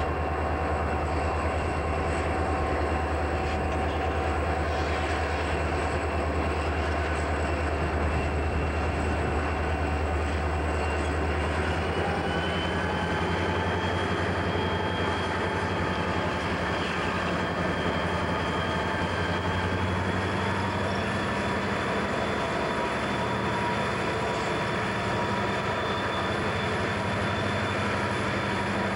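CSX diesel freight locomotives running as the train pulls out, a steady engine drone that steps up in pitch about twelve seconds in and again later, as the engines are throttled up.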